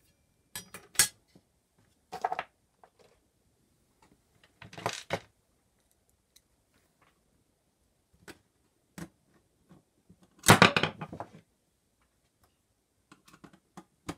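Sheet-metal cover and chassis of a QuickDisk drive being handled and fitted back together by hand: a few short metallic clatters and scrapes, the longest and loudest about ten seconds in.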